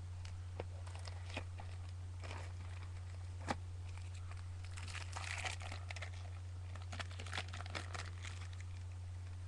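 Trading card packs and cards being handled: scattered light clicks and crinkles of wrappers and card stock, busiest about five to six seconds in, over a steady low hum.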